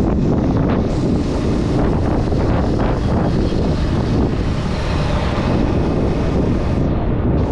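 Steady wind rush buffeting the microphone while riding a motorbike, with the bike's engine and road noise underneath.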